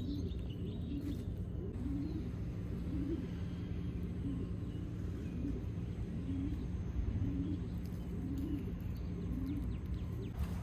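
A dove cooing, a low call repeated roughly once a second, over a steady low hum.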